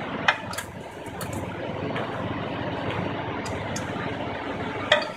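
Caterpillar 3412 V12 diesel generator engine running steadily, with a few sharp clicks over it, the loudest about a quarter second in and near the end.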